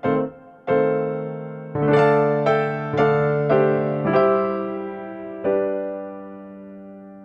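Background music on a piano-like keyboard: a slow tune of single struck notes that each fade, ending with a note about five and a half seconds in that is left to die away.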